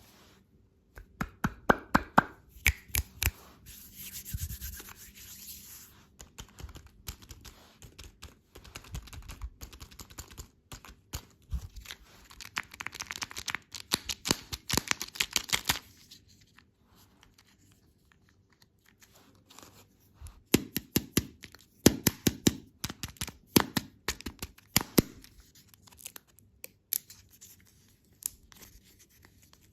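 Candy packaging being torn open and handled: plastic wrappers tearing and crinkling, with many sharp clicks and crackles. It comes in several busy bursts with quieter stretches between them.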